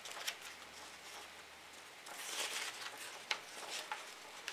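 Paper pages of a printed instruction booklet being turned by hand: a faint rustle with a few light flicks, a little louder about two seconds in.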